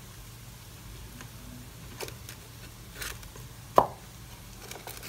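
A few short knocks and clacks of a spatula and chicken pieces against the bowl of a Tefal ActiFry as the pieces are turned over and arranged, the loudest just before four seconds in. A steady low hum runs underneath.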